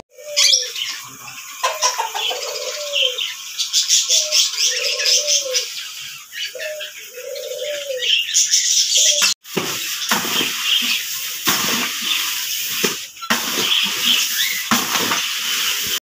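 Many small caged birds chirping busily. A dove coos repeatedly through the first half. After a cut, the chirping goes on with rustling noises.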